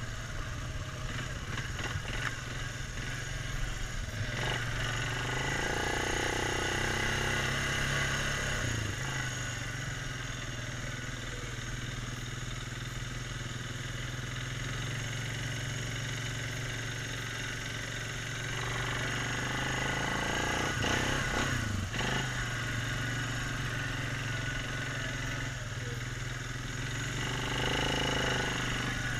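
ATV engine running steadily while riding along a dirt trail. The engine note rises and gets louder three times as the throttle is opened: about five seconds in, again around twenty seconds, and near the end.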